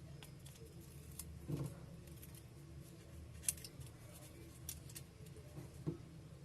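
Faint, scattered small clicks and taps from a smartphone and tools being handled on the bench as a new display assembly is pressed into its frame, over a low steady hum.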